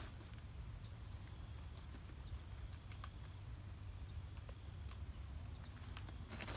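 Insects, crickets by their sound, singing steadily as a high, even background drone, over a low rumble. A faint click about three seconds in.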